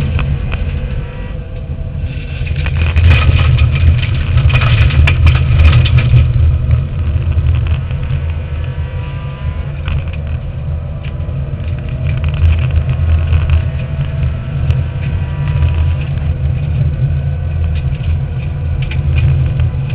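Subaru Impreza N4 rally car's turbocharged flat-four engine running hard at speed, heard from inside the cabin. Clusters of knocks and rattles from the car on the rough stage road come through a few seconds in.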